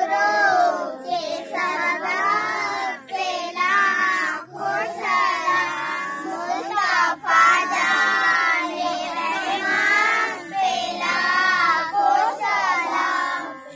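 A group of children singing together in short phrases with brief breaks.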